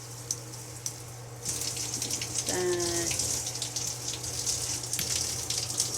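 Water spraying from a Hotel Spa handheld shower head. A soft hiss on the mist setting, with two small clicks, jumps suddenly to a much louder spray about a second and a half in as the head is switched to another spray setting.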